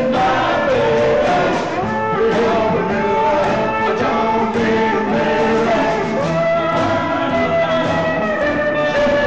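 Live rockabilly band playing, with several men singing together into microphones over an upright double bass, electric guitars and drums.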